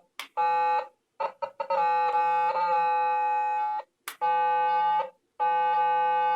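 Stylophone 350S, a vintage stylus-played electronic organ, sounding a buzzy tone rich in overtones. It is started and stopped as the stylus touches the keys: a few quick staccato taps, then held notes mostly on one pitch, the tone voicing set by its octave and voice switches.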